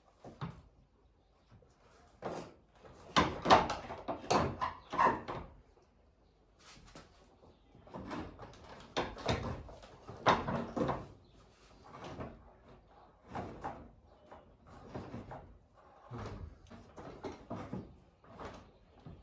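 Irregular clunks, knocks and clatter of metal parts being handled as a rebuilt scooter engine is fitted back into its frame, with pauses between bursts.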